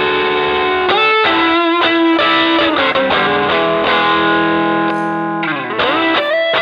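Electric guitar played through an MXR Dynacomp compressor pedal: long sustained notes and chords with a couple of sliding or bent notes.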